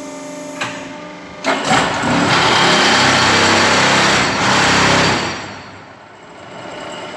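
Hydraulic concrete block and paving press running with a steady motor hum. A click comes about half a second in, then a sudden loud, harsh noise for about three and a half seconds as the machine works through a cycle, before it drops back to the hum.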